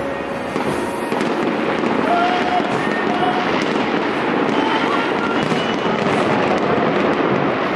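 Fireworks going off in a dense, continuous crackling barrage of many small cracks and pops.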